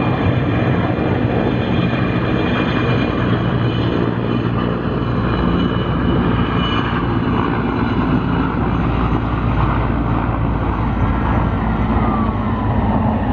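Firefighting helicopter flying low over the lake, a loud steady rotor and engine drone. Near the end a faint siren starts to wail.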